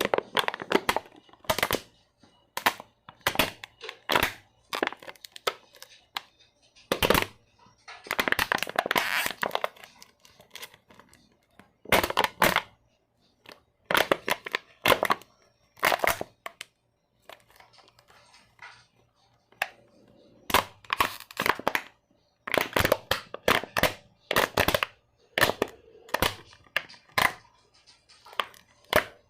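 A back being cracked: a long series of sharp pops and cracks from the spine's joints, coming in quick clusters with short gaps, and a denser run of them about eight seconds in.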